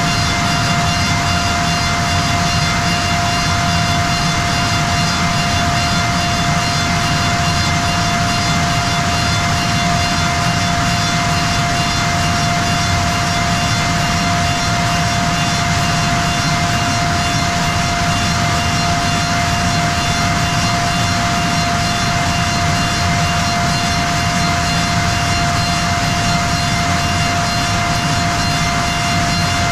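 Bacci T4MO CNC wood machining centre running inside its closed enclosure: a steady high whine over an even rushing noise that holds constant throughout.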